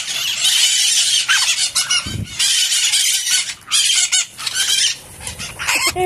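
A flock of white-eyed parakeets screeching together: a loud, dense chorus of harsh high calls with a few short lulls.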